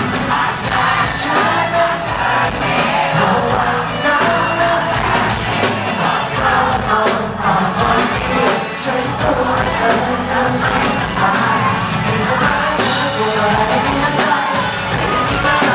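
A pop-rock band playing live with a singer, the vocals over drums and guitars.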